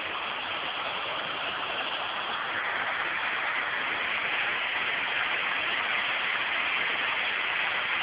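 Waterfall rushing: a steady hiss of falling water that grows a little louder and brighter about two and a half seconds in.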